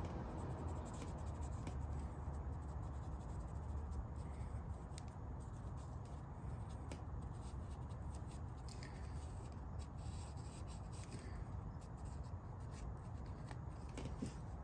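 Hand rubbing Mothers Mag wheel polish on a pitted metal car window crank with a cloth, a steady scrubbing with a few faint clicks, working the pitting off.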